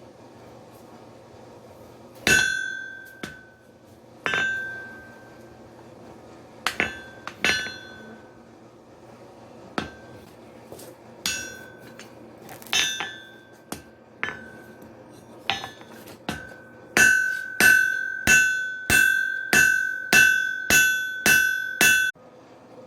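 Blacksmith's hammer striking wrought iron on an anvil, each blow ringing. Scattered single blows give way, about three-quarters of the way in, to a steady run of about two blows a second that stops abruptly near the end, typical of rough forging the axe body.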